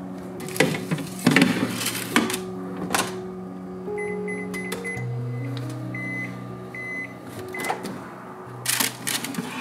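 Panasonic Bistro oven's touch panel beeping with short, high, same-pitched beeps as the temperature and time are pressed in. Before that there is clatter of a baking tray being handled, and near the end a cluster of knocks as the tray goes into the oven.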